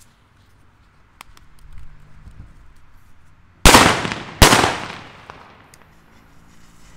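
Two loud firecracker bangs about three-quarters of a second apart, each echoing away: Hua Liang 'Super Böller 3' (Bonbridge petard) firecrackers loaded with 2–4 g of flash powder. A faint click and low crackling come before them.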